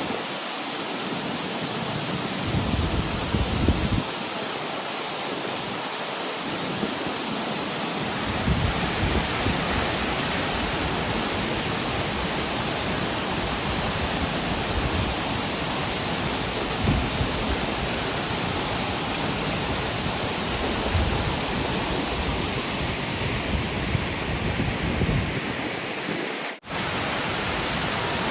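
MacKenzie Falls' waterfall pouring: a steady, full rush of falling water, cutting out for an instant near the end.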